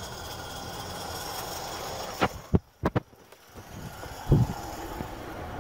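A steady hiss with a few faint high tones, then a quick cluster of sharp knocks about two seconds in and a single thump later on.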